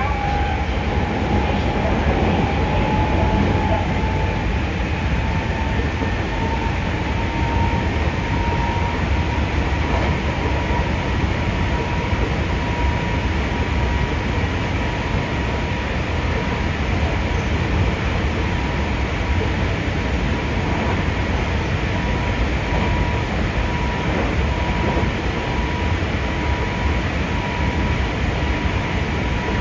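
Hankyu 5300 series resistance-controlled electric train running, heard from inside the car: a steady rumble of wheels on rail with a motor whine that rises a little in the first few seconds, then holds steady.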